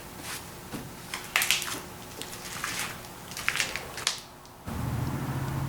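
Small metal parts clinking and scraping as they are handled on a workbench, in scattered light clicks. Near the end the sound changes abruptly to a steady low hum.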